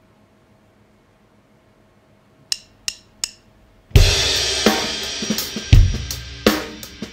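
Acoustic drum kit: after near silence, three quick sharp clicks count in, then about four seconds in the full kit starts with a cymbal crash, playing a loud groove of snare, bass drum and cymbals.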